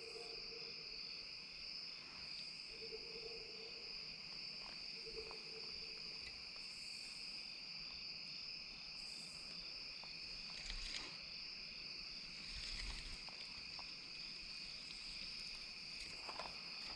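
Steady chorus of crickets and other insects: a continuous high trilling.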